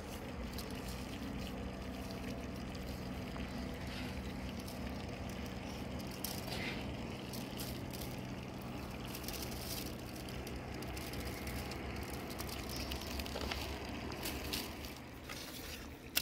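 Hands rubbing coarse salt onto small raw fish in a metal colander: scattered soft scratches and crunches. Under it runs a steady low hum that fades near the end.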